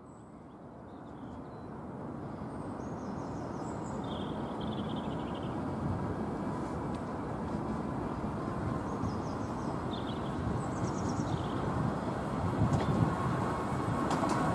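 Small battery-electric miniature-railway locomotive (a Planet four-wheeler) with one carriage approaching along the track. The rumble of its wheels on the rails grows steadily louder, with a few sharp clicks near the end.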